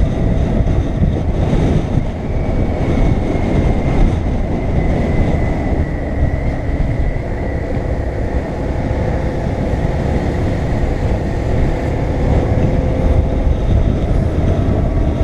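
BMW R850R's boxer twin engine running steadily at road speed, under heavy wind rush over the tank-mounted microphone.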